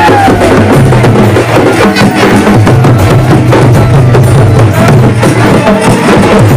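Loud traditional Raut Nacha folk music: fast, dense drumming with sharp clacking hits.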